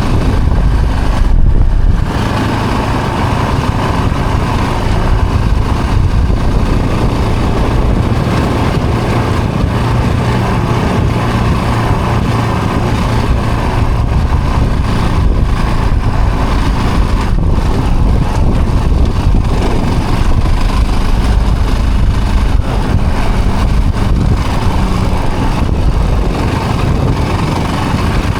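An off-road vehicle's engine running steadily as it drives along a rough dirt trail, with a loud, continuous low rumble and a brief louder surge about a second and a half in.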